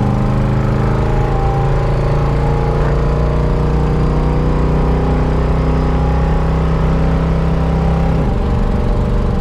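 Ford Ranchero's carbureted V8 pulling steadily through a gear, its note slowly rising, then dropping as the transmission shifts up about eight seconds in, heard from inside the cab.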